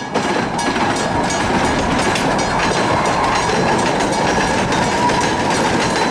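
Miniature 457 mm gauge railway train with open passenger carriages rolling past, its wheels clattering steadily on the track.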